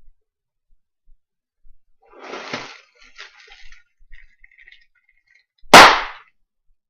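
Bubble wrap being handled, with a few soft crackles, then a single loud, sharp bubble-wrap pop near the end.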